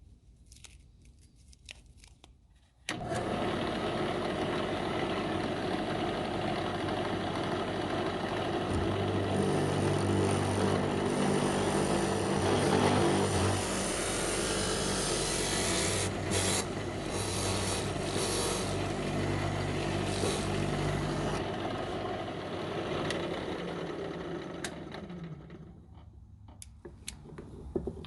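A power tool starts suddenly about three seconds in and runs steadily for around twenty seconds, then winds down and fades near the end.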